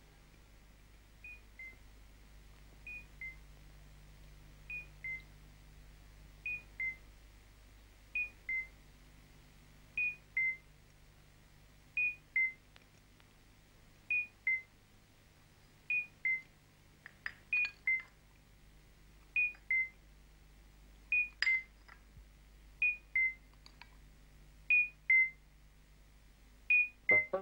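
An electronic beeper sounding two-tone beeps, a higher tone then a slightly lower one, in pairs about every two seconds that grow steadily louder. A few faint clicks fall between them in the second half.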